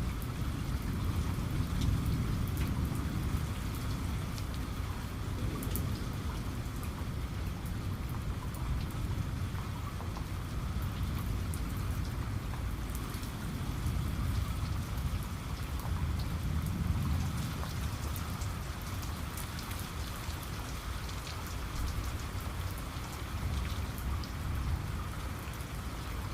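Steady rain falling, with individual drops ticking over a dense patter and a low rumble that swells and fades a few times.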